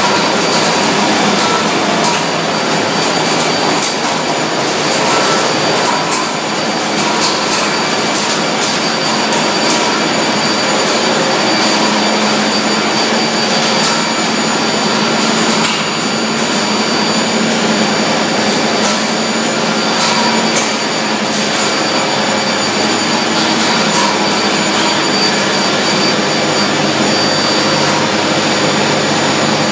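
Olive oil mill machinery running while olives are processed into oil: a loud, steady mechanical din with a thin constant high whine through it and a few light clicks.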